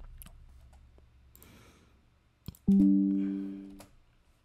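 Music: a plucked-string passage whose notes die away, with one strong low plucked note a little after the middle that rings for about a second and fades.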